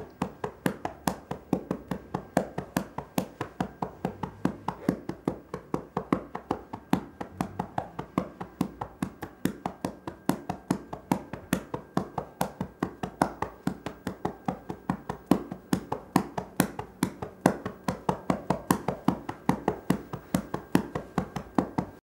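A fast, even run of sharp ticks, about three a second, over a faint steady high tone; it stops abruptly at the end.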